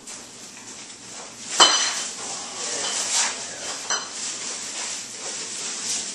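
Plastic garbage bags rustling as they are picked up and handled, with a sharp ringing clink about a second and a half in and a lighter knock near four seconds.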